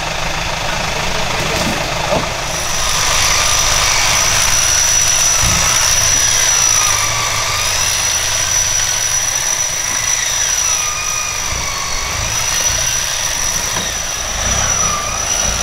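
Modified 4x4 off-road truck's engine running, its pitch rising and falling slowly as it works over a rocky obstacle. From about two and a half seconds in, a steady high whine runs over it.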